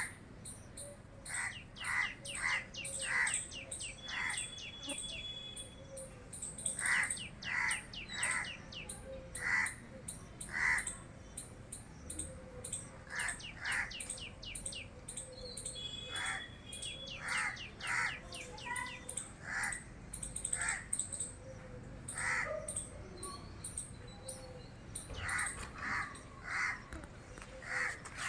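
Animal calls outdoors: short harsh calls repeated in runs of three to five, with quick high-pitched chirps in between.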